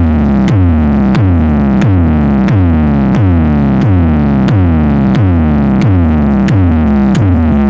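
Loud electronic hard-bass music. A deep synth bass note drops sharply in pitch over and over, about three times every two seconds, each drop opening with a sharp click.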